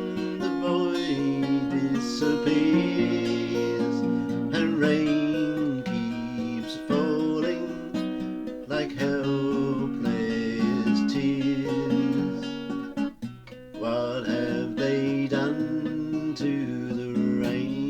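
Acoustic guitar strumming a folk-song accompaniment, with a brief drop in level about thirteen seconds in.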